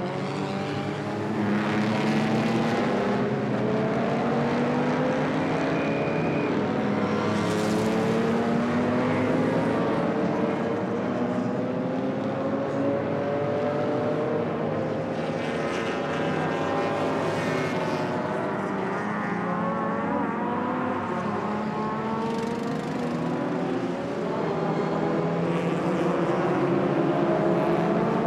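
Several racing car engines running at once, their pitch slowly rising and falling, overlapping throughout.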